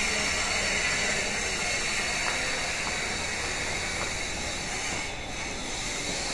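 Steady hissing railway-station background noise, with a few faint footsteps on the concrete stairs of the footbridge.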